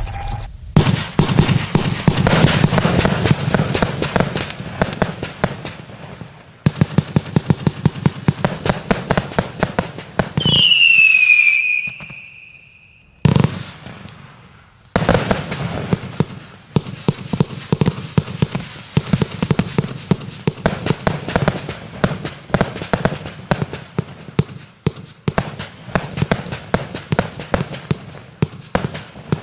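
An 84-shot, 25 mm consumer fireworks battery firing: rapid volleys of launch shots and crackling bursts. About ten seconds in there is a whistle that falls in pitch and then holds for about two seconds, followed by a short lull before the rapid shots resume.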